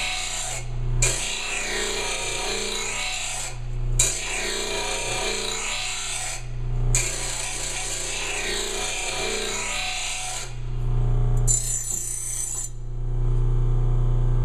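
Bench blade grinder's abrasive wheel grinding the steel edge of a lawn mower blade in smooth back-and-forth passes: a steady gritty rasp with brief breaks about every three seconds. Near the end the blade comes off the wheel and only the grinder motor's steady hum is left.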